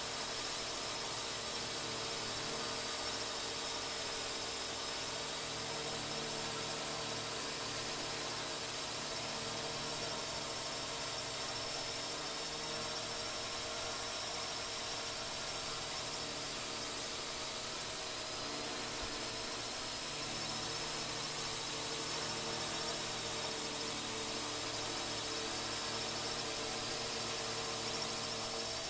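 Quadcopter drone's motors and propellers whining steadily: a high-pitched whine over an even hiss.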